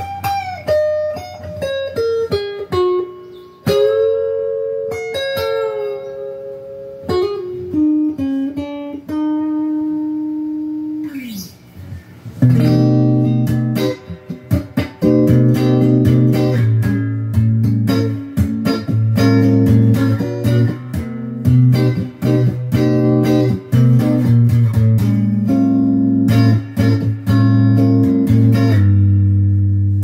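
Squier Debut Series Stratocaster electric guitar with stock single-coil pickups, on its middle pickup, played through an amp. For about the first twelve seconds it plays a descending single-note line that ends in a long slide down, then picked and strummed chords ring over a low bass note.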